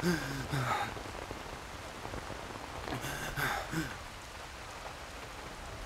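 Heavy rain falling steadily on hard wet ground. A boy gasps, once at the start and again about three seconds in.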